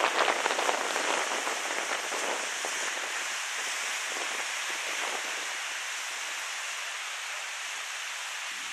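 Sea surf washing against a rocky shoreline. A wave splashes and its foam crackles and fizzes in the first second or two, then it settles into a steady hiss of surf.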